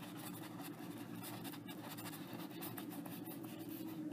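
A paintbrush scratching faintly across canvas in short, irregular strokes and dabs as oil paint is worked into the hair, over a low steady hum.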